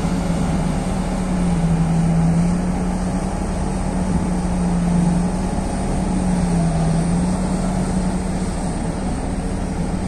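Engine running steadily, its hum wavering slightly in pitch.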